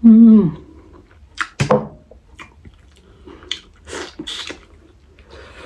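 Seafood boil mukbang eating sounds: a short hummed vocal sound falling in pitch at the start, then two sharp clicks and a few lighter crackles from eating and handling the seafood.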